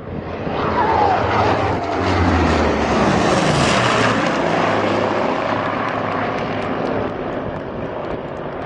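Vintage propeller aircraft making a low, fast pass, the engine note loudest a few seconds in and dropping in pitch as the aircraft go by.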